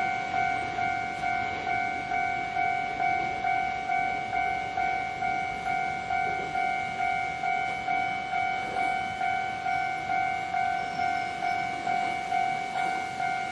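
Japanese level-crossing warning bell ringing its steady electronic "kan-kan", about two strokes a second, with train running noise underneath.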